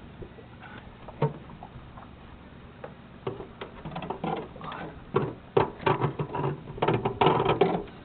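Handling noise as a model float plane is fitted into its launcher: scattered clicks, then a busy run of knocks and rattles of plastic and metal parts from about three seconds in, loudest near the end.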